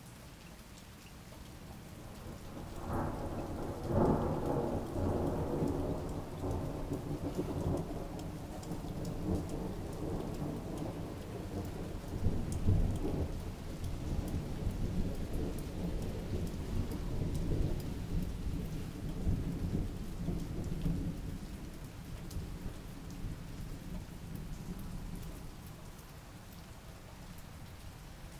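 Steady rain falling, with a long roll of thunder that swells up about two seconds in. The rumble rolls on with loud peaks early and again about halfway through, then dies away near the end.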